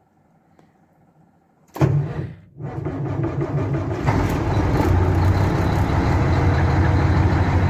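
Cummins 15-litre diesel in a Volvo VNL truck cold-starting. About two seconds in the starter engages and the engine fires almost at once. It dips for a moment, then catches and runs on steadily. It is a cold start at about −5 °C on weak batteries that only just turn it over.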